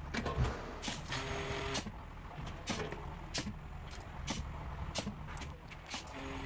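Mini rotary soda bottling machine running: a steady low hum with sharp clicks about once a second as it fills and caps bottles.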